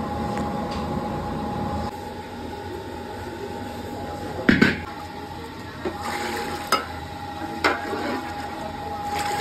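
Kitchen sounds of milk being boiled down in big pans: a steady hiss from the gas burners, broken by several sharp metal knocks of utensils against the aluminium and iron pans, the loudest about four and a half seconds in.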